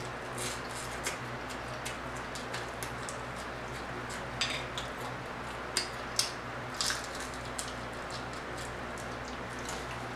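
Close-miked chewing of crispy fried croaker fish: wet mouth clicks and lip smacks, with a few sharper crunches about halfway through, over a steady low hum.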